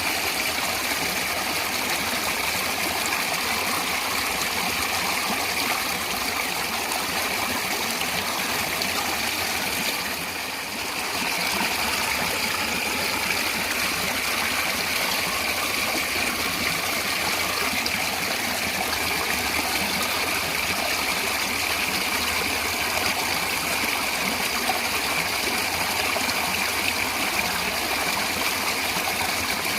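Stream water running steadily, with a brief dip in level about ten seconds in.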